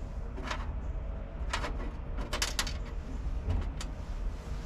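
Light clicks and rustles of hands handling small parts while labelling them, a handful scattered through, over a steady low rumble.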